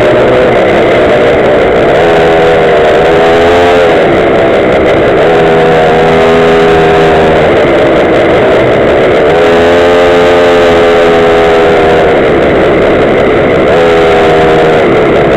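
Gas-powered Goped stand-up scooter's small two-stroke engine running loud and close, its pitch rising, holding and easing off several times as the throttle is worked.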